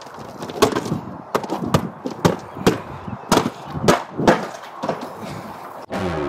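Footsteps on a paved walkway, a run of sharp irregular steps about two a second, mixed with handling knocks on the hand-held camera. Intro music cuts in right at the end.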